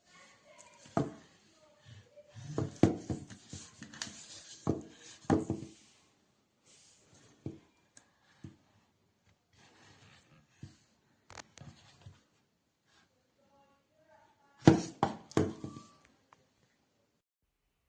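Handling noise: a run of knocks, taps and rubbing sounds as an object is picked up and moved about, then quieter ticks, and a second short cluster of knocks near the end.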